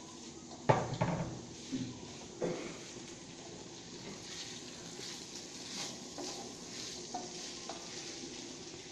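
Chopped sausage and tomato sizzling in a frying pan while a spatula stirs and scrapes through it, a steady hiss throughout. A few sharp knocks come in the first couple of seconds.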